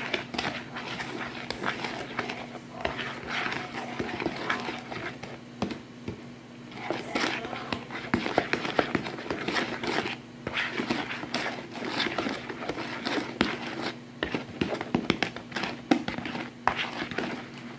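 A metal utensil stirring cornbread batter in a plastic mixing bowl: an irregular run of scrapes and clicks against the bowl, over a low steady hum.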